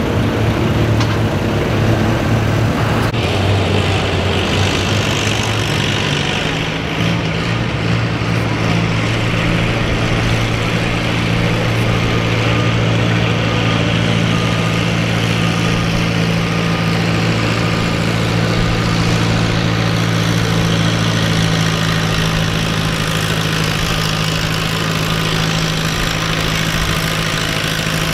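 Antique pulling tractor engine idling steadily at the sled, not under load. The sound changes abruptly about three seconds in, and from then on it is a red Farmall tractor's engine holding an even idle.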